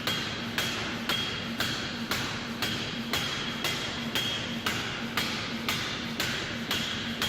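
Forging hammer striking a hot metal bar in an even rhythm, about two blows a second, over a steady low hum.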